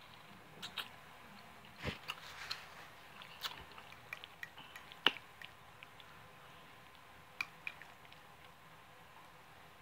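Close-up eating sounds: chewing chicken and soft egg noodles, with irregular short wet mouth clicks, the sharpest about five seconds in.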